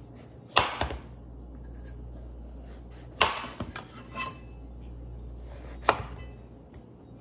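Kitchen knife chopping a peeled bottle gourd on a cutting board. There are three sharp chops, about a second in, just after three seconds and near six seconds, with a few lighter knocks after the second.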